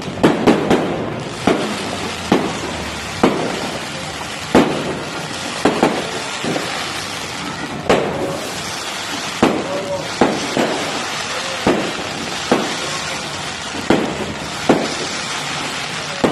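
Fireworks going off: a string of sharp bangs, about one a second, some doubled, over a steady background hiss.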